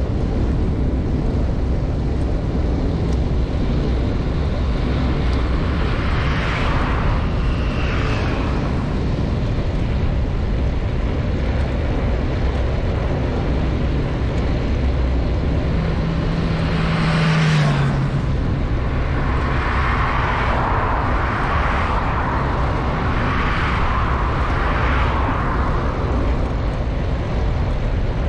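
Steady rumble of wind and road noise from a moving bicycle. Motor traffic passes by; a little past halfway one vehicle goes by with an engine note that drops in pitch as it passes.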